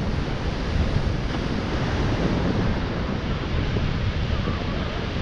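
Surf breaking and washing onto a sandy beach in a steady rush, with wind buffeting the microphone and adding a low rumble.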